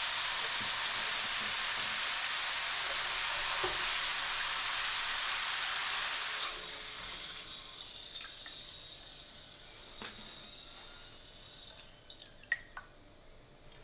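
Potato chips sizzling as they deep-fry in hot oil. The sizzling drops sharply about six and a half seconds in and fades away as the last chips are lifted out, and a few sharp clicks come near the end.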